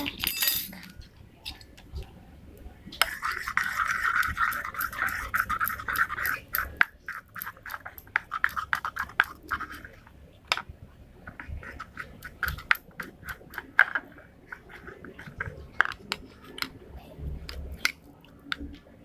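Slime mixture being stirred with a spoon in a bowl: repeated light clinks and scrapes of the spoon against the bowl, with a longer stretch of busier scraping a few seconds in.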